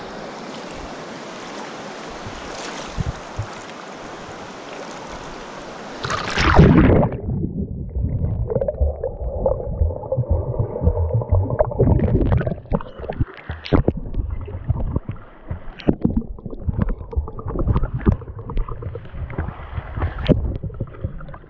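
Steady rush of river water, then a loud splash about six seconds in. After it the sound turns muffled, with low gurgling, bubbling and scattered knocks, as from a microphone going under the water.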